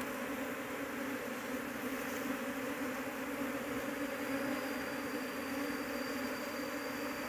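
A colony of Asian honeybees (Apis cerana) buzzing steadily as a dense swarm, stirred up while their nest is broken open and handfuls of bees are scooped out by hand.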